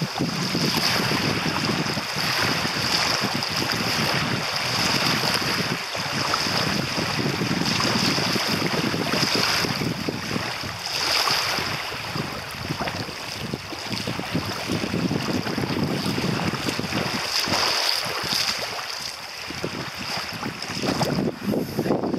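Small lake waves lapping and washing onto a gravel shoreline, with wind buffeting the microphone.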